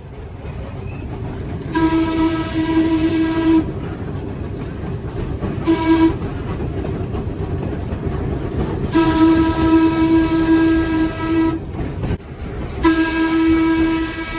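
MBTA train horn sounding a single steady tone in blasts: a long blast, a short toot, then two more long blasts, over the steady running rumble of the train.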